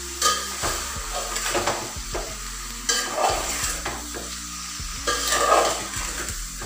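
Spoon scraping and stirring raw chicken pieces through frying onions and spices in an aluminium pot, over a continuous sizzle. The strokes come irregularly, with the loudest scrapes near the start, about three seconds in and about five and a half seconds in.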